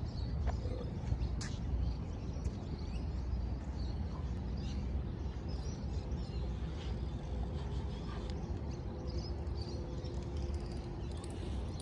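Outdoor ambience: a steady low rumble with scattered short bird chirps. A faint steady hum comes in about halfway through.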